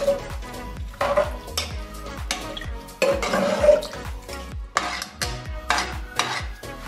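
Metal spoon stirring beef chunks, sliced onion and water in a metal pressure cooker pot, with irregular clinks and scrapes against the pot and wet sloshing.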